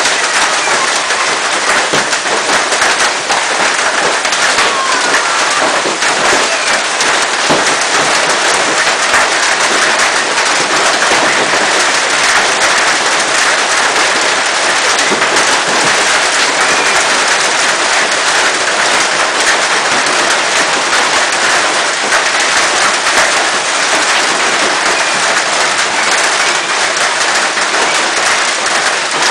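Hailstones pelting down in a heavy storm: a loud, dense, unbroken clatter of countless small impacts.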